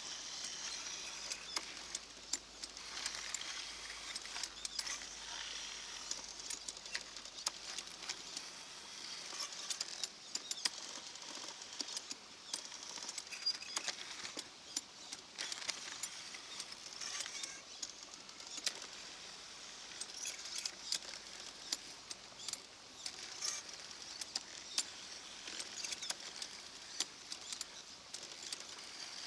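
Gravel and small stones scraping, crunching and clicking as a radio-controlled model excavator digs and rips through them, with many sharp clicks throughout and no engine sound.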